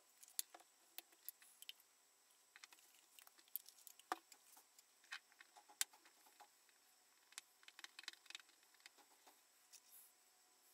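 Thin wooden stick clicking and scraping against a small porcelain dish while stirring lacquer, a scatter of irregular light clicks.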